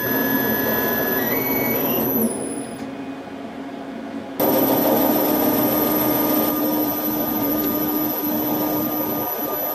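Homemade CNC lathe running while turning a nylon rod: a steady motor whine with several steady tones from the spindle and axis drives. Shortly after two seconds in, some of the tones step and glide down and the sound drops for about two seconds, then the full running sound returns abruptly about four and a half seconds in.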